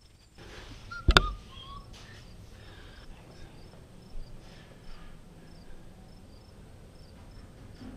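A sharp knock about a second in, then soft rustling and handling noise, over faint high chirps that recur every half second or so, often in pairs.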